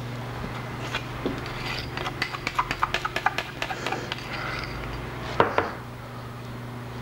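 A knife spreading chocolate icing on a cake, scraping and clicking against the cake board and icing bowl. A quick run of light clicks comes in the middle, then two louder knocks, all over a steady low hum.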